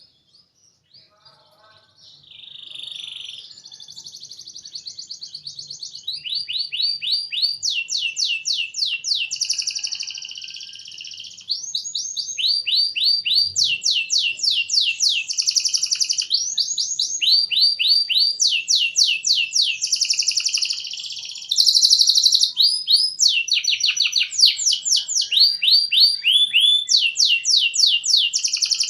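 Domestic canary singing a long, unbroken song of rapid trills and quick falling sweeps, the phrase changing every second or two. It starts faint and grows louder in steps.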